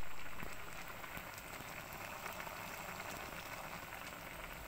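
Broth boiling in a wok around a block of dry pancit canton noodles: a steady bubbling hiss with small crackles.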